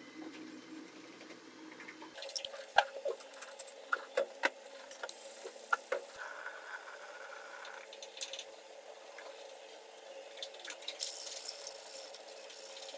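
Wet deodar wood board being hand-sanded with 160-grit waterproof sandpaper: bouts of scrubbing strokes of paper on wet wood, cutting off the grain fibres raised by wetting. Sharp knocks come as the board is handled on the countertop, the loudest about three seconds in.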